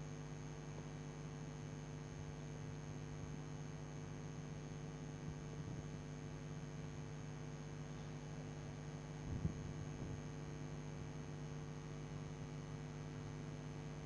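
Steady low electrical hum, with one short knock about two-thirds of the way through.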